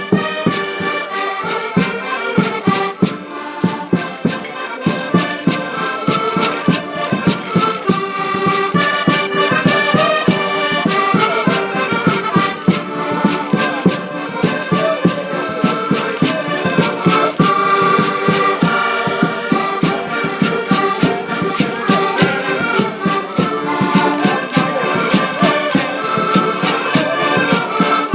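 A live band playing traditional Portuguese popular music, with sustained melody over a steady, even beat.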